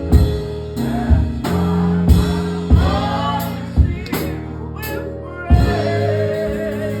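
Gospel music: singing over drum strokes and held chords.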